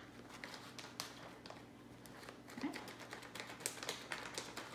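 Faint, irregular crinkling and crackling of a plastic bag of shredded cheese as it is handled and shaken out.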